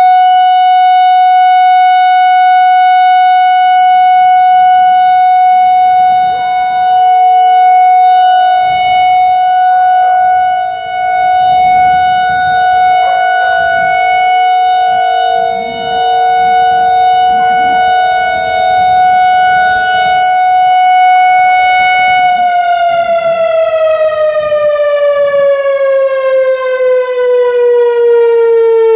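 Whelen WPS-4004 electronic outdoor warning siren sounding its steady test tone, loud and unwavering in pitch, then about 22 seconds in the pitch begins to fall steadily as the 3-minute test signal winds down.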